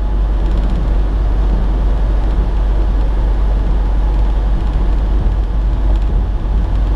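Semi-truck cruising at highway speed, heard inside the cab: a steady drone of engine and road noise with a strong low rumble.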